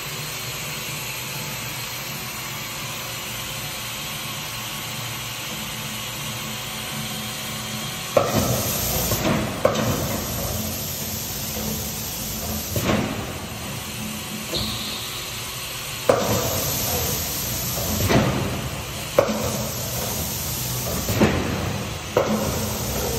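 Niagara M-200 200-ton OBI air-clutch punch press running, its flywheel drive humming steadily. About eight seconds in it starts being cycled, with a series of sharp clunks and hisses, about eight in all at uneven gaps, as the air clutch engages and the ram strokes.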